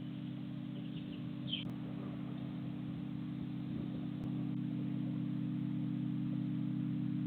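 Steady low hum with one short bird chirp about one and a half seconds in; the hum gets a little louder about four seconds in.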